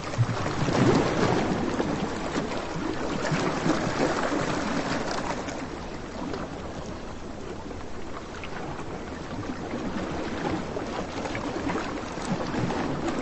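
Surf on a sandy beach: a steady wash of waves that swells and eases, louder around the first few seconds and again near the end.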